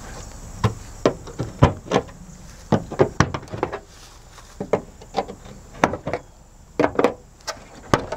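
Irregular metallic clicks and knocks, some with a short ring, as a screwdriver turns the fasteners on a Beechcraft Bonanza's side engine cowling and the cowl panel is loosened.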